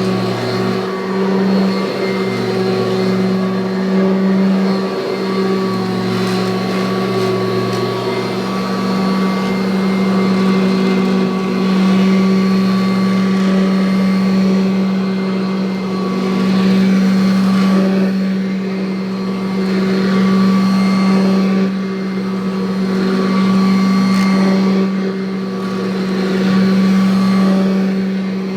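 1984 Kirby Heritage upright vacuum cleaner running with a steady motor hum and hiss, its loudness swelling and easing every few seconds as it works.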